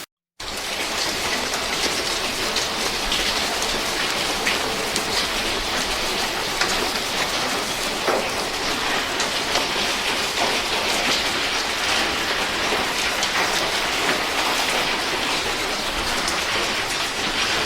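Heavy rain pelting a hard surface, a steady dense hiss with many small taps scattered through it.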